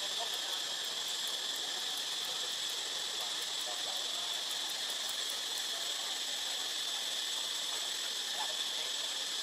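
A steady, high-pitched drone of a forest insect chorus, with faint scattered chirps.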